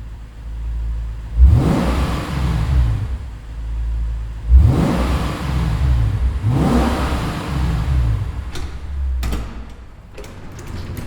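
Lexus RC F's 5.0-litre V8 exhaust: a low rumble broken by three hard revs, each climbing sharply in pitch and falling away, about a second and a half, four and a half and six and a half seconds in. A few sharp cracks come near the end as it settles back.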